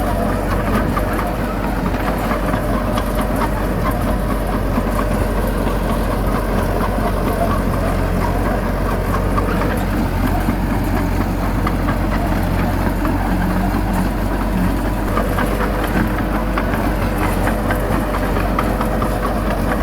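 Bulldozer's diesel engine running steadily, with a continuous fine clatter.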